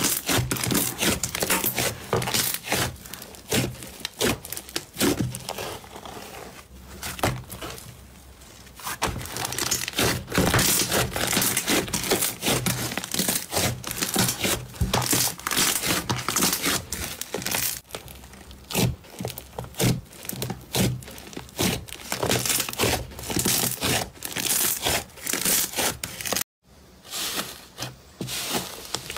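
Thick, airy slime being kneaded, squeezed and pulled apart by hand, giving dense, irregular crackling and popping of trapped air and tearing. A brief gap comes near the end, then the crackling starts again.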